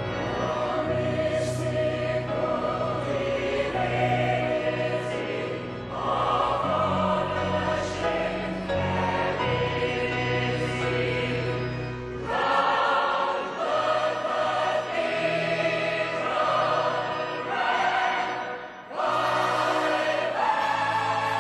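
Stage-musical ensemble singing as a choir over orchestral accompaniment, the chords shifting every second or two.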